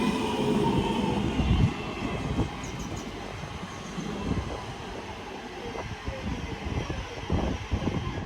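Class 323 electric multiple unit pulling into the platform, its traction whine and running noise louder for the first second or so, then settling to a lower steady rumble with occasional knocks.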